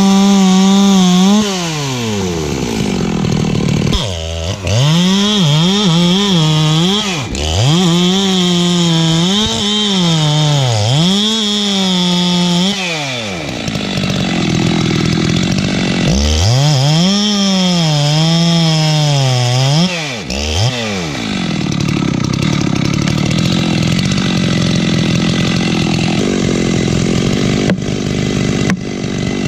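Modified Makita/Dolmar 7900 79cc two-stroke chainsaw cutting into the trunk of a dead red gum eucalyptus at full throttle, its pitch dropping again and again as it bogs in the very dense wood and climbing back up. After about 21 seconds it runs lower and steadier, and a couple of sharp knocks come near the end.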